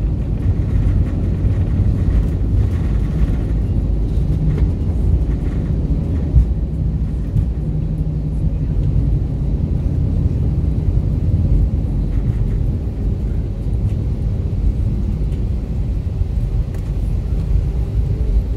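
Airbus A320 cabin noise during the landing rollout: a steady low rumble from the engines and the wheels on the runway, easing slightly as the jet slows.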